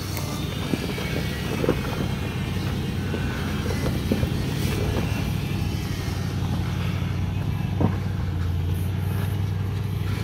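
Land Rover Range Rover L322's engine running steadily at a slow crawl, uphill over rocks in its rock-crawl mode. Stones crack and pop under the tyres a few times.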